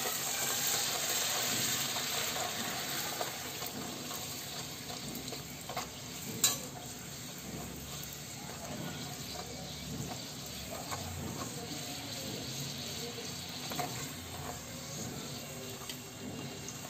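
A puri deep-frying in hot oil in a kadhai: a steady sizzle, loudest in the first couple of seconds, while a slotted spoon presses and turns it. A single sharp click comes about six and a half seconds in.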